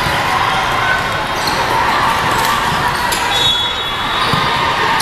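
Echoing din of a volleyball tournament in a large hall: volleyballs being struck and bouncing on courts, over a steady murmur of voices.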